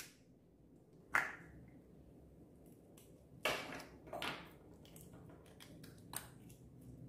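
A small plastic container gives a sharp click as its lid is opened about a second in. Then sticky slime is pulled from it with two short crackling squelches, and a few lighter clicks of plastic.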